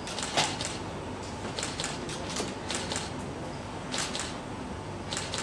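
Camera shutter clicking in short irregular runs of a few clicks each, over a steady background hiss.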